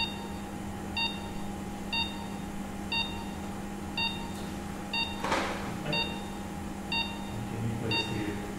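Anaesthetic patient monitor's pulse oximeter beeping about once a second, a short tone with each heartbeat, over a steady machine hum. A brief burst of noise about five seconds in.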